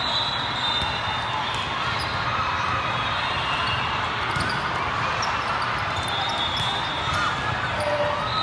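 Volleyballs being struck and bouncing, heard as frequent sharp knocks over the steady echoing din of many volleyball courts in a large hall.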